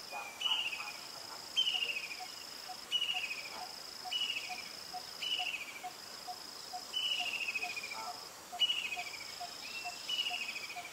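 Forest insect chorus: a steady high buzz in long stretches with short breaks, repeated falling chirps about every second and a half, and a soft, even ticking about three times a second.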